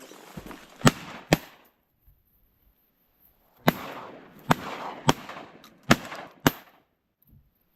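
Shotguns firing at ducks, each report trailing off in an echo. Two quick shots come about a second in, then five more follow in a rapid volley over about three seconds.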